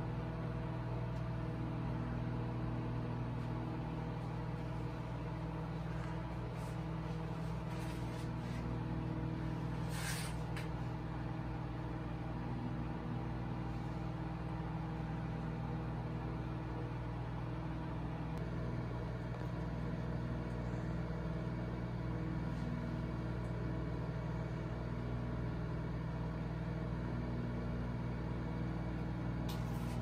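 A microwave oven running: a steady low electrical hum with its fan, and a brief click about ten seconds in.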